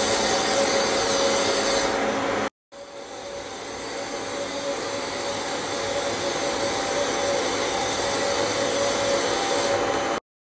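An upholstery dust-extraction machine runs steadily, its motor noise carrying a steady whine as air rushes through the hose and handheld nozzle working dust out of sofa fabric. The sound cuts out about two and a half seconds in, comes back building up, and stops abruptly near the end.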